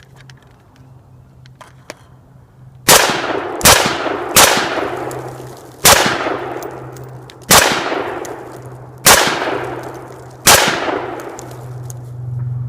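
Seven gunshots, three in quick succession about three seconds in, then four more spaced about a second and a half apart, each with a long echoing tail: shots fired into the block of ballistic gelatin to finish it off.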